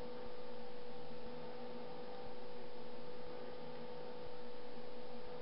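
Steady electrical hum, with nothing else standing out.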